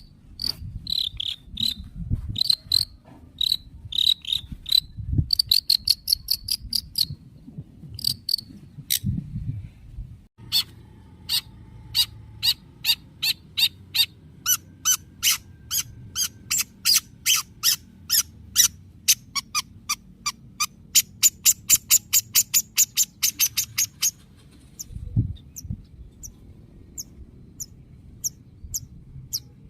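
Long-tailed shrike (cendet) calling in long runs of sharp, clipped, chattering notes, a few to about six a second, broken into bursts with short pauses. A few low thumps sound beneath the calls.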